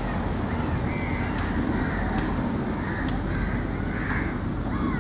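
A steady low rumble of background noise, with birds giving short, repeated arched calls throughout and a few faint ticks.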